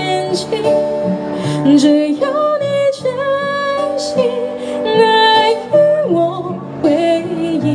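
A woman singing a slow song live into a microphone, accompanying herself on acoustic guitar, with long held notes.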